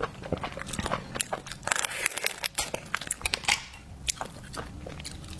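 Close-miked eating of seafood: biting and chewing with many sharp, wet clicks in quick succession, busiest about two to three and a half seconds in.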